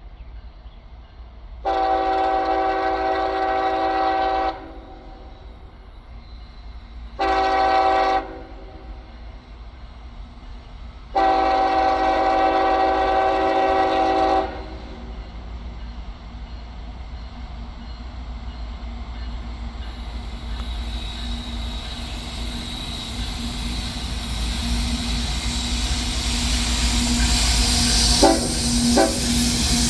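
A CSX freight locomotive's air horn sounding a chord in blasts, long, short, then long, ending the standard grade-crossing signal as the train approaches. After the horn the rumble of the oncoming train grows steadily louder, with a couple of sharp wheel clicks near the end.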